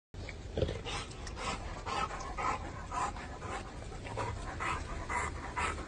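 A dog panting steadily, about two breaths a second.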